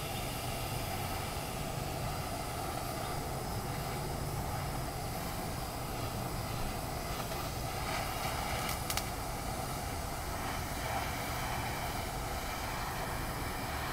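Hand-held propane torch burning steadily, its flame giving a continuous rushing noise as it is played over bread.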